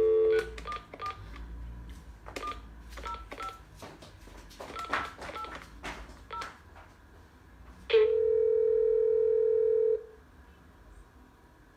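Mobile phone call tones through the phone's speaker. A short tone is followed by a scatter of clicks and brief beeps over several seconds. About eight seconds in, a steady tone sounds for about two seconds, then stops: the unanswered call is not going through.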